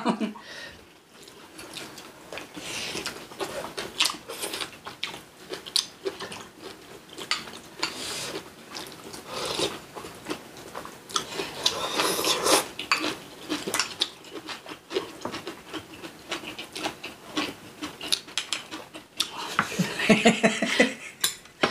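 Eating sounds: chewing of braised pork back ribs and kimchi, with many short clicks of utensils against dishes and a busier stretch near the end.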